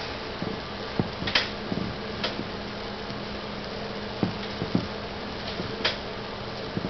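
A hand squishing biodegradable packing peanuts dissolving in a bowl of water: scattered wet squelches and small pops over a steady hiss and a faint hum.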